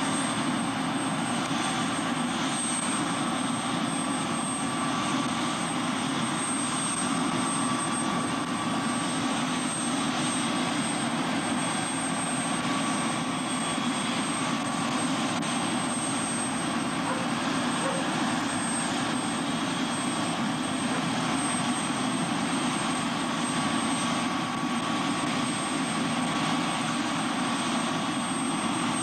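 Helicopter running on the ground with its main rotor turning: a steady engine and rotor noise that keeps an even level throughout.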